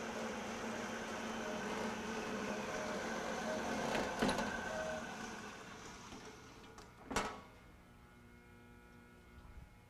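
Horizontal band saw running steadily, its blade cutting through a round metal bar. About four seconds in there is a click as the cut finishes, and the saw's sound dies away over the next two seconds. A single sharp clank follows about seven seconds in, then only a faint hum.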